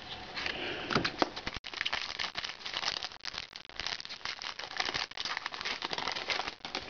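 Foil wrapper of an Upper Deck hockey card pack crinkling and tearing as it is pulled open by hand: a dense run of small crackles.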